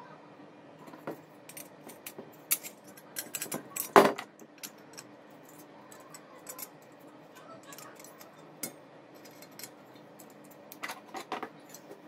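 Light metallic clicks and clinks from the metal parts of a stripped microwave oven magnetron and its cooling fins as they are handled and worked with pliers, with one louder knock about four seconds in and a cluster of clicks near the end.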